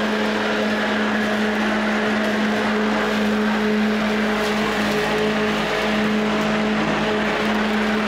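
Lawn mower running steadily at an even pitch while cutting grass.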